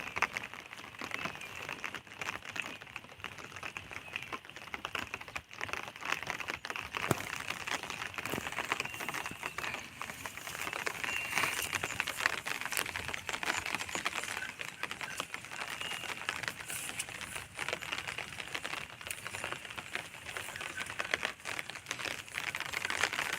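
Parrots chattering softly, a dense run of quick clicks and crackles with a few short high chirps scattered through.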